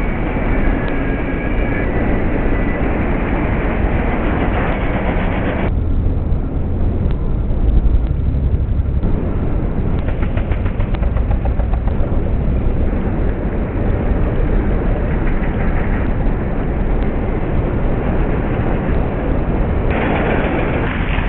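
Busy city road traffic: cars, taxis, motorbikes and tuk-tuks driving past, a continuous mix of engine rumble and tyre noise. A short high-pitched tone sounds over it in the first couple of seconds.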